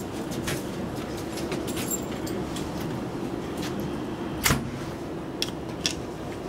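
A steady low hum, with one sharp knock about four and a half seconds in and two lighter clicks about a second later.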